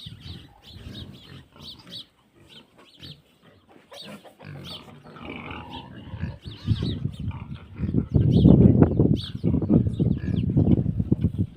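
Pigs grunting in quick, rough pulses, much louder for the last few seconds.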